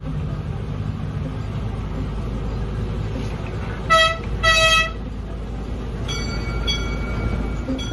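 Miniature amusement-park train running with a steady low rumble as it rolls out, sounding two short horn toots about four seconds in, followed by fainter tones a couple of seconds later.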